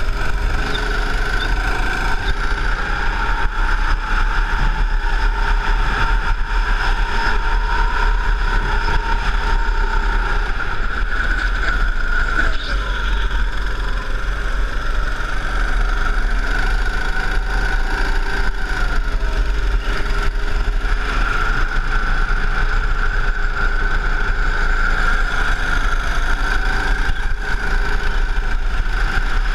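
Go-kart engine running at speed on track, heard from on board the kart: a loud, steady engine note whose pitch drifts gently up and down as the revs change through the corners.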